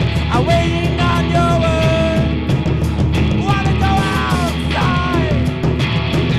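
Live punk-rock band playing: a male singer yells and sings into the microphone over electric guitar and a steady drum beat.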